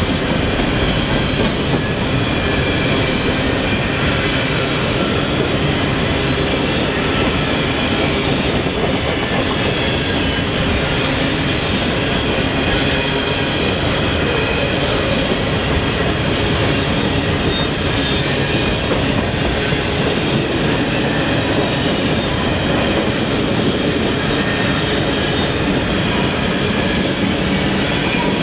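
Covered hopper cars of a freight train rolling past: a steady rumble of steel wheels on rail with clacking over the rail joints and a faint high wheel squeal.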